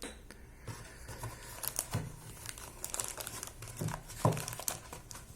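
Packaging being handled and unwrapped: irregular crinkling and rustling with small clicks and taps.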